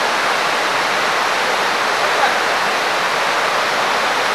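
Fast mountain river rushing over rocky rapids: a steady, unbroken wash of white-water noise.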